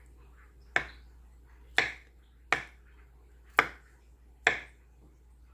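Knife chopping on a cutting board: five sharp chops about a second apart.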